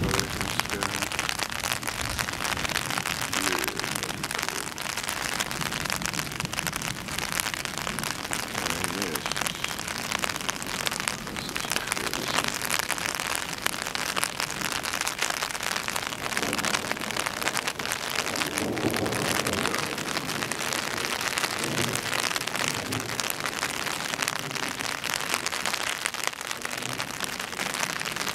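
Steady thunderstorm rain falling on surfaces, an even hiss.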